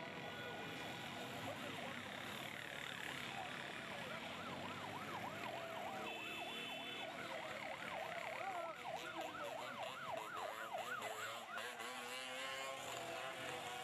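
Convoy escort vehicle's electronic siren in a fast yelp, its pitch sweeping up and down about three times a second, over crowd noise.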